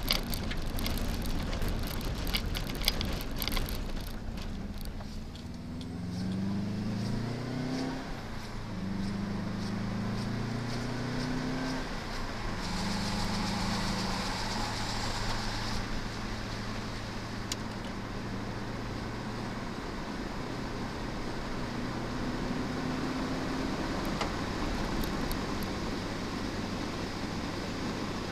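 Cabin sound of a 1998 Subaru Impreza WRX STi's turbocharged flat-four. Gravel crunches under the tyres in the first few seconds. The engine then accelerates, its pitch rising and dropping back at two upshifts, and settles into a steady cruise with a brief rise near the end.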